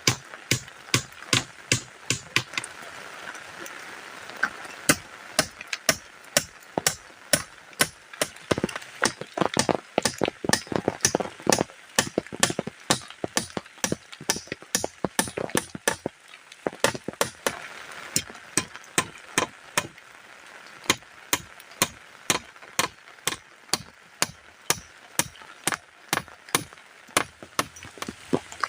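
Rapid, sharp chopping strikes, about two to three a second, with a steady hiss of rain underneath.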